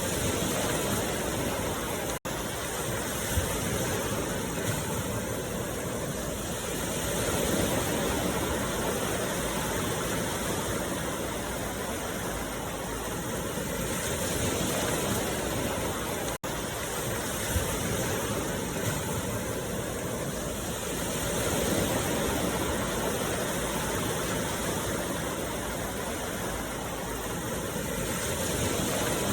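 A continuous rushing noise that slowly swells and eases every several seconds, broken twice by a split-second dropout.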